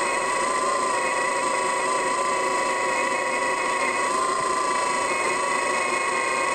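Tile-trenching machine running steadily under load, with a strong high whine that wavers slightly in pitch over the engine noise.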